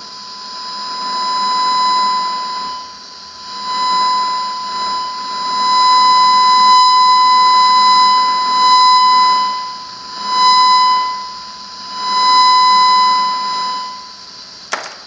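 Audio tone recovered by parametric demodulation of a 2 GHz radio signal: a steady high-pitched electronic tone with overtones that swells and fades about six times. It drops away near the end, followed by a single click.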